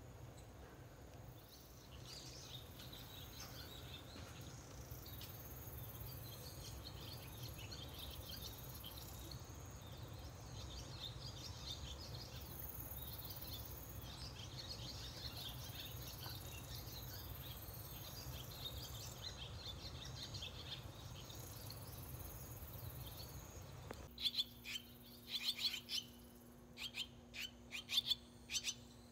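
Barn swallows chirping: a soft, dense twittering, then from about 24 seconds in, louder, separate sharp chirps over a low steady hum.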